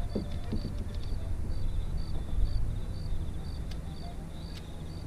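Crickets chirping steadily, about two short high chirps a second, with a fainter trill between them, over a steady low rumble. Two sharp clicks about four seconds in.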